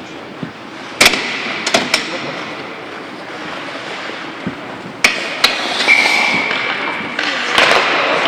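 Ice hockey play: sharp knocks of the puck and sticks against the boards, several times over a steady hiss of skates on ice. A short steady whistle blast comes about six seconds in.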